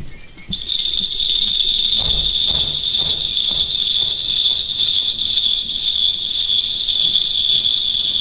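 Steady, continuous jingling of bells that starts abruptly about half a second in, as part of a music track.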